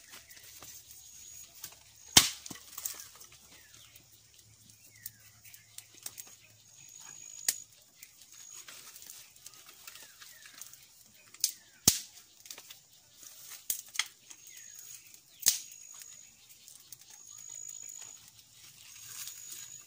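Sharp snaps and knocks of dry sticks being handled, broken and laid onto a small smouldering wood fire. They come singly at irregular intervals, about seven in all, the loudest a couple of seconds in.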